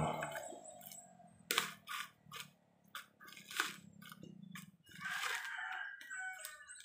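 Husked coconuts being handled, giving a string of irregular sharp knocks and dry crunches.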